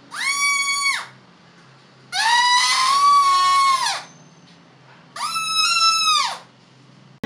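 Ice-cream-stick harmonica, a rubber band stretched between two wooden sticks, blown through the lips: three buzzing, reedy notes, a short one, a longer one of about two seconds, and a third whose pitch slides down as it fades.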